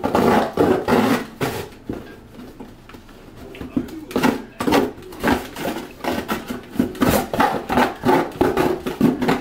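Scissors chopping and crunching through a cardboard box in a series of irregular snips, hard going with scissors instead of a box knife.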